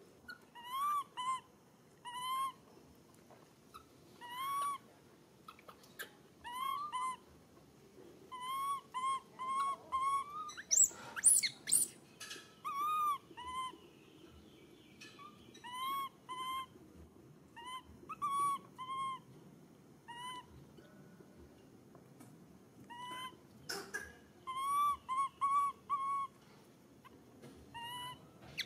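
Infant long-tailed macaque crying: a series of short, plaintive coo calls that rise and fall in pitch, coming singly or in quick runs of two to four. About eleven seconds in there is a louder, high rising squeal with a few sharp clicks.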